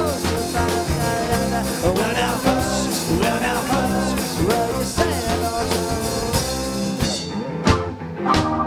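Live rock band playing with electric guitars, bass, drums and keyboards, a lead line bending in pitch over the groove. About seven seconds in the full band drops away to a few separate drum hits, then a held chord.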